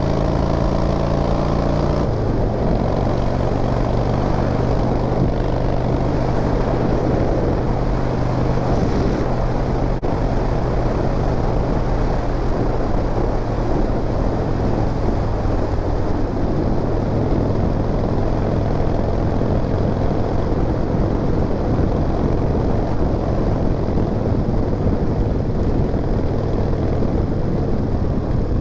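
Harley-Davidson motorcycle's V-twin engine running under way, its pitch rising over the first couple of seconds as it speeds up, then holding steady, with wind and road noise.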